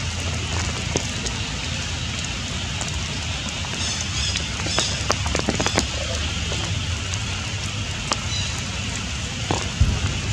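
Steady rain falling on forest leaves, with scattered sharp drip and tap sounds.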